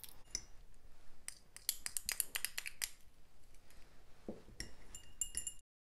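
Metal spatula stirring inside a small glass beaker, a quick run of light clinks and scrapes of metal against glass, in two spells; the sound stops abruptly near the end.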